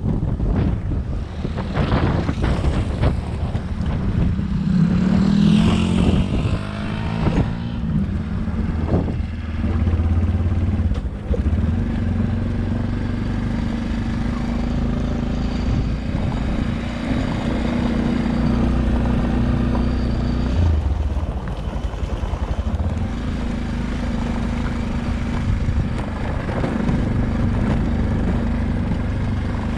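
A vehicle engine running steadily with a low hum, with gusts of wind noise on the microphone over the first eight seconds or so.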